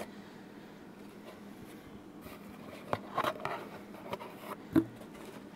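Hands packing a clock into a cardboard box: faint handling and rustling, with a few light taps about three seconds in and a sharper knock near the end.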